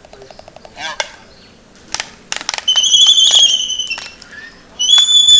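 Laysan albatross calls: a few sharp clacks, then two loud drawn-out calls about a second long each, one near the middle and one starting near the end.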